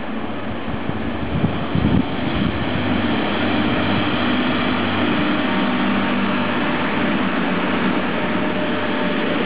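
Red DB Regio diesel multiple unit train drawing in and running past close by: a steady diesel engine drone over the rolling of wheels on rail, growing louder over the first few seconds. A few knocks sound about a second and a half to two seconds in.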